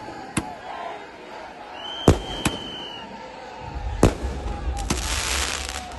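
Firecrackers going off in a crowd: a string of sharp bangs, with a high whistle for about a second near the start and a dense fizzing crackle near the end.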